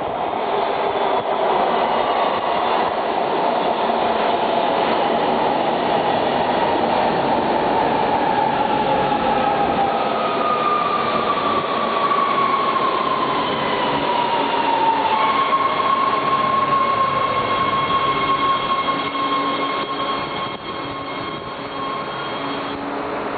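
Subway train running into a station platform: a loud rush of wheels and air, with a whine that falls in pitch about halfway through as the train slows, then a steady high tone until near the end.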